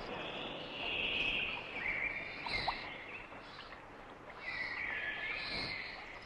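Birdsong: several high warbling phrases, each about a second long, over a steady hiss.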